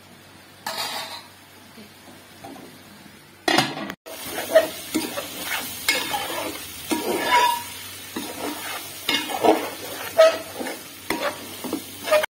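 Chicken curry sizzling in hot oil in a metal pot while a metal ladle stirs it, scraping the pot in repeated strokes. It is quiet at first with a single scrape about a second in, then the sizzling and scraping pick up from about three and a half seconds.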